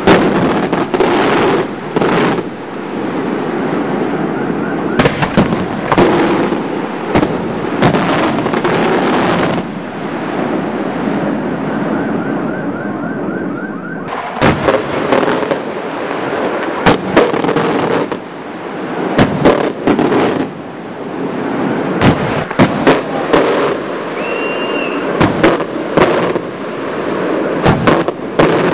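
Daylight fireworks going off: a continuous dense crackling with many sharp bangs spread throughout, easing briefly partway through before building again.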